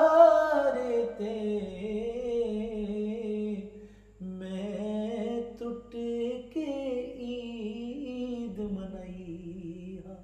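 Unaccompanied solo voice singing long, drawn-out wavering notes in three phrases, with short breaks about four seconds in and again a couple of seconds later.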